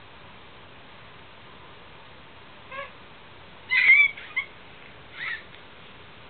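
A baby's short, high-pitched squeals, three brief calls a second or so apart, the loudest about four seconds in.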